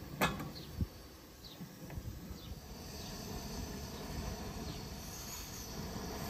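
A sharp clink of kitchenware being set down near the start, then faint short high chirps about once a second over a steady hiss that grows slightly louder in the second half.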